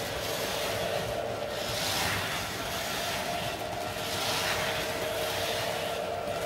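O scale model freight train running past on three-rail track: a steady rumble of the cars rolling over the rails, with an even motor hum underneath.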